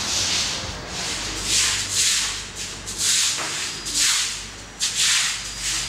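Wet mop being pushed back and forth over a wet stone floor, a hissing swish with each stroke, about one stroke a second.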